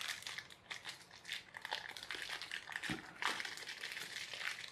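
Packaging being handled and crinkled by hand, a run of irregular crackles and rustles, with one dull knock about three seconds in.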